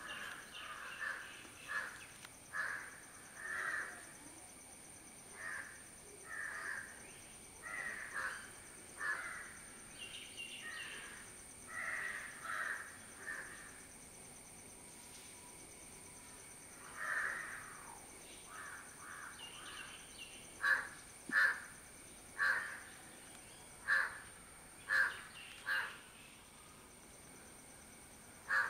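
Crows cawing: a run of short caws, then, about two-thirds of the way in, louder, sharper caws about once a second.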